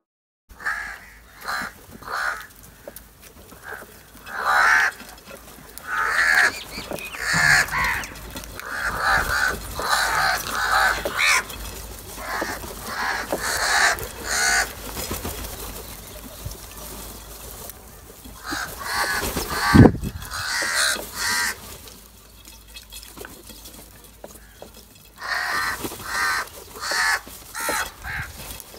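A flock of house crows cawing: many short, harsh calls overlapping in bursts, with quieter lulls between. A single sharp knock about twenty seconds in is the loudest sound.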